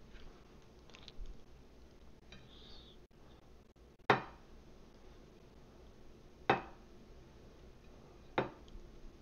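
A glass dish knocks and clinks sharply three times, about two seconds apart, as pizza slices are handled on it.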